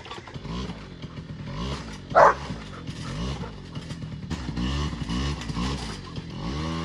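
Small engine of a Polaris Predator kids' quad revving up and down over and over as it is ridden. A dog barks once, loudly, about two seconds in.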